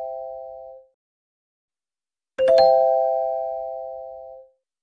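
Doorbell-like chime sound effect: the tail of one chime dies away in the first second, then a second chime is struck about two and a half seconds in, a low note followed at once by two higher ones, and rings down over about two seconds.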